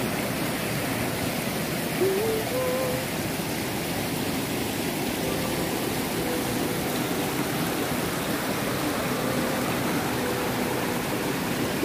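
Steady rushing of flowing water, an even hiss at a constant level. Faint distant voices can be heard under it.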